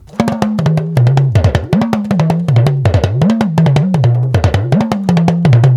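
Yoruba talking drum played in a fast rhythm with a stick, many strokes a second, its pitch sliding up and down as the tension cords are squeezed and released, in a phrase that repeats about every second and a bit.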